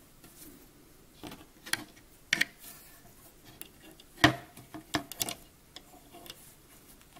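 Light, scattered clicks and taps of a metal loom hook against the plastic pegs of a round knitting loom as the last stitches are bound off. The loudest click comes about four seconds in.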